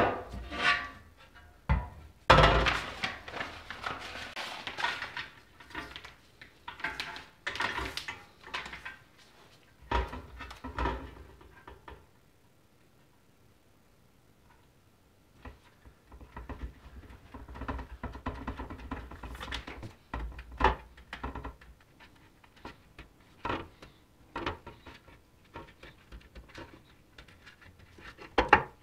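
Gloved hands handling a black-painted metal cover on a bench mat: knocks and thumps as it is set down and turned over, then smaller clicks and scrapes while a rubber strip is pressed onto its edge.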